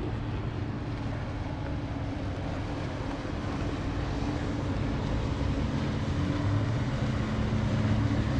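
Steady drone of motorboat engines as boats cruise past on the water, a little louder near the end.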